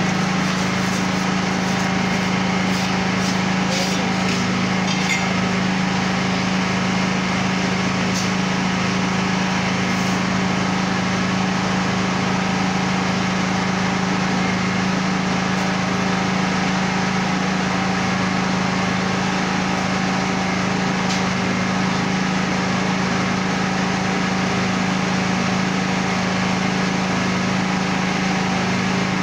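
A small engine or motor running steadily, a constant drone with a low hum. A few faint clicks or knocks come in the first few seconds and again now and then.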